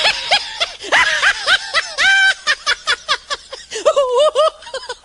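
Funny laughter sound effect: a high-pitched voice laughing in rapid, bouncing ha-ha bursts, with one longer drawn-out syllable about two seconds in.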